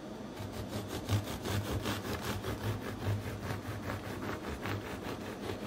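Serrated bread knife sawing through a loaf with a hard, crusty crust on a wooden cutting board: a steady run of quick, even back-and-forth rasping strokes.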